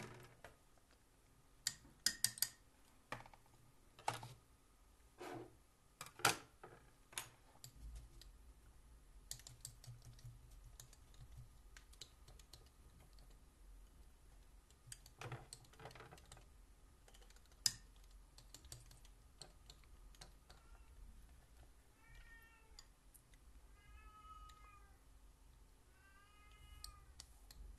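Scattered sharp clicks and taps of painting supplies being handled on a tabletop as paint is put out on a palette. Near the end comes a string of short pitched calls, each rising and falling, about one a second.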